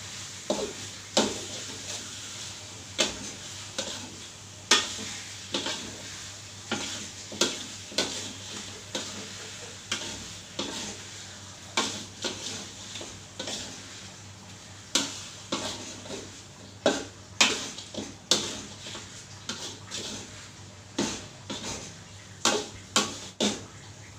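A metal spatula scrapes and knocks against a metal wok in irregular strokes, about one every half second to a second, as duck pieces in green chili paste are stirred. Under it the food sizzles steadily as it fries.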